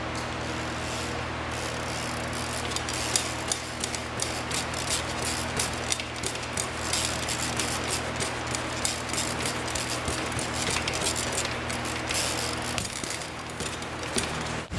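BMX bike ridden through flatland tricks on smooth concrete: tyres hissing and scuffing, with frequent sharp clicks and rattles from the bike, over a steady low hum.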